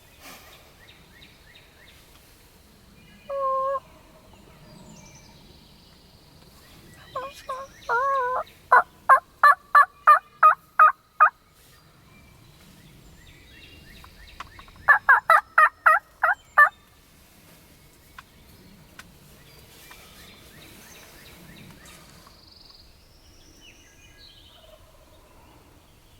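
Turkey yelping: a single call about three seconds in, then a run of about ten loud, evenly spaced yelps from about seven seconds, and a faster run of about eight notes about fifteen seconds in. Small birds chirp faintly between the runs.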